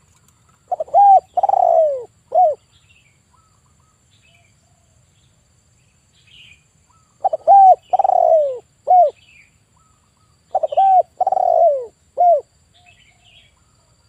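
Male spotted dove cooing in three phrases of about two seconds each. Each phrase is a few short coos around a longer, falling middle note.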